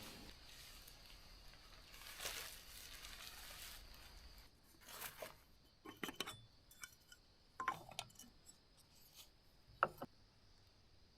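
Intermittent rustling and a few light clinks and clicks of camping gear being handled, in several short spells with pauses between.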